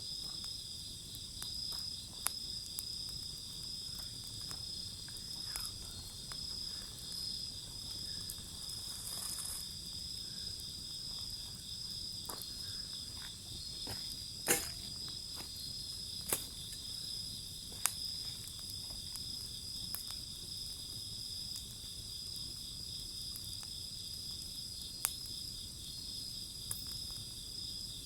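Wood fire burning, giving a few sharp pops, the loudest about halfway through. Underneath, a steady high chirping of insects runs throughout.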